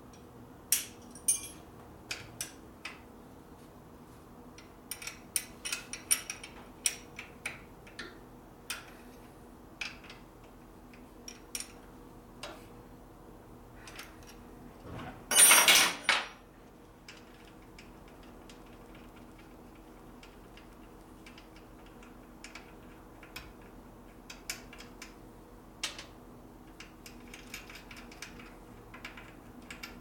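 Scattered clinks and clicks of metal hand tools and hardware against the motorcycle's parts, irregular taps through the whole stretch. About halfway through comes a loud rush of hiss-like noise lasting about a second.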